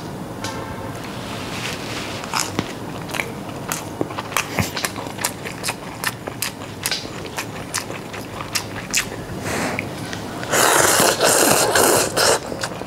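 Close-up eating sounds: chewing with many small wet clicks. About ten and a half seconds in comes a loud slurp of cup noodles lasting about two seconds.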